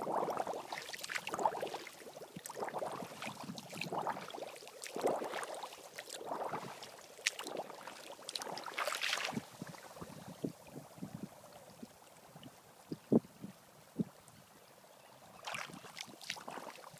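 Bare foot sloshing and stirring in shallow water over wet sand, in repeated swishes for about the first nine seconds. After that it goes quieter, with scattered small clicks and two sharp knocks, before the swishing returns briefly near the end.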